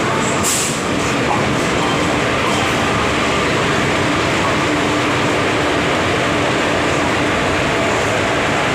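A train moving close alongside the platform, a steady, loud rushing noise of wheels and carriages with no clear beat.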